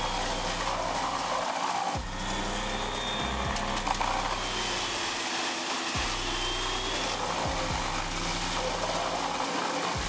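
Large crane-fed wood chipper running steadily as logs are fed in, with background music over it.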